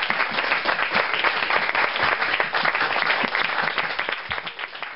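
Audience applauding: a dense patter of many hands clapping that fades out near the end.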